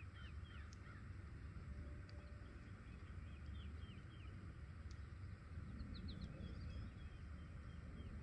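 Small birds chirping in short, quickly falling notes that come in scattered runs, over a low steady outdoor rumble.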